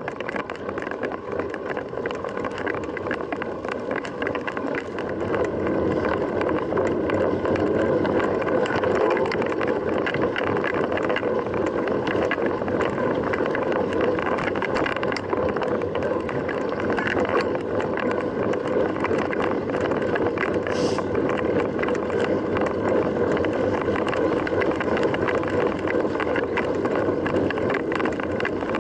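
Steady rush of wind and tyre noise from a mountain bike being ridden. It grows louder about five seconds in and then holds.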